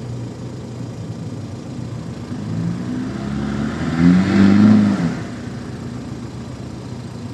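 Volkswagen Amarok's diesel engine running on a trail, building up from about two and a half seconds in to a loud rev around four to five seconds in, then easing back to a steady run.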